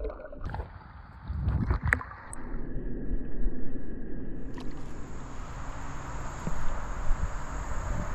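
Water sloshing and gurgling, with a steady high hiss joining about halfway through.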